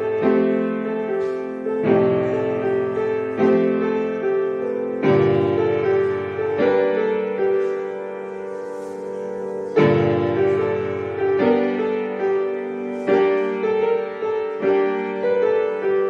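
Instrumental music: chords struck about every second and a half, each ringing out and fading, with one chord left to fade longer about halfway through.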